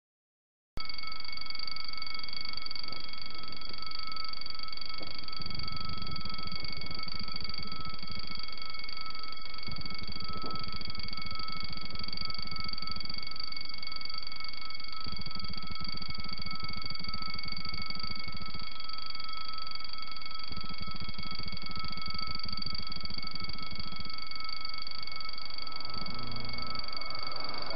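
Level-crossing warning bell ringing continuously with a steady, multi-toned ring, over a low rumble that comes and goes. Near the end the rush of an approaching TGV begins to swell.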